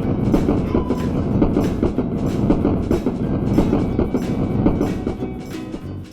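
Train sound effect of wheels clattering quickly and evenly over rail joints, growing quieter near the end.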